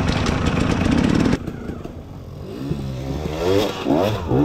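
Dirt bike engine running loud and close on a helmet camera, then a sudden switch about a second and a half in to an enduro dirt bike revving up and down in rising and falling sweeps as it labours up a steep wooded hill climb.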